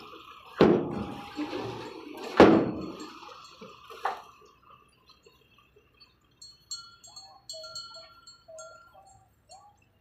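Two loud metallic bangs about two seconds apart, then a lighter one, from a tipped-up dump truck's tailgate swinging and slamming against the raised bed as the truck pulls away from the dumped soil and rock.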